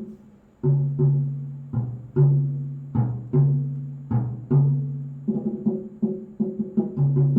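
Instrumental music: a slow run of low, plucked-sounding notes, each struck and left to die away. The notes come quicker from about five seconds in.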